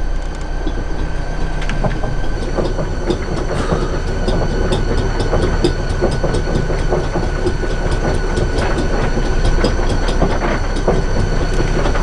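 Anchor chain clanking and rattling link by link as the windlass hauls it up into the chain locker, over a steady mechanical hum.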